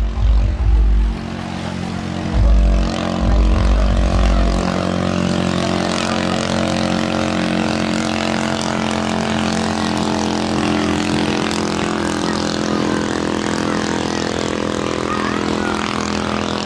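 Racing outrigger bangka's Kress engine running flat out in a steady high drone as the boat speeds across the water. Heavy wind buffeting on the microphone in the first few seconds.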